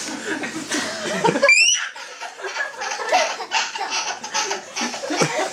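Toddler girls laughing hard, with adults laughing along, several overlapping laughs. There is a short, high rising squeal about one and a half seconds in.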